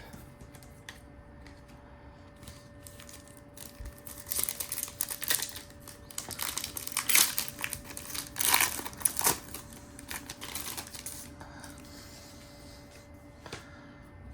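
Foil trading-card pack wrapper being crinkled and torn open, a run of rustling crackles lasting several seconds in the middle, with lighter card-handling clicks before and after.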